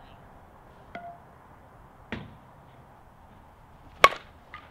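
A softball struck by a 2024 Axe Scorch endload slowpitch bat: one sharp, ringing crack about four seconds in, the loudest sound. Two softer knocks come before it, about one and two seconds in.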